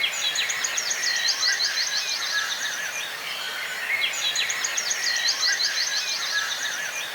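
Birds chirping and trilling over a steady outdoor background hiss, a recorded nature ambience whose same few-second stretch starts over about four seconds in.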